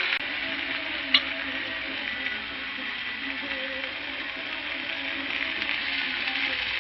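Red lentils and spinach sizzling in hot mustard oil in a pan as they are stirred, with one sharp click about a second in.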